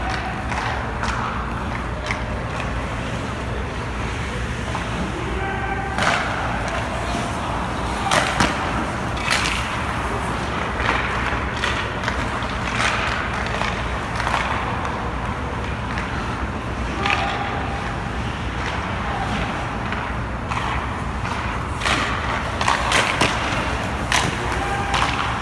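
Ice hockey shooting drill: hockey sticks cracking against pucks and skate blades scraping the ice, with sharp cracks every second or few over a steady low hum.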